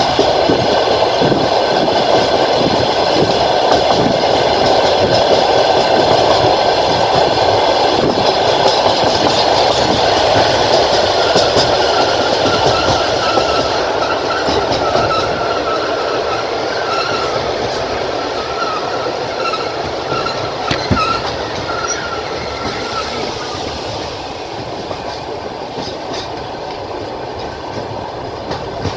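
Passenger train running on the rails, heard from inside a carriage at the window: a steady rolling rumble of wheels with faint clicks over rail joints. A thin, steady wheel squeal rises out of it from about twelve seconds in to about twenty-three seconds in. The noise grows quieter in the second half.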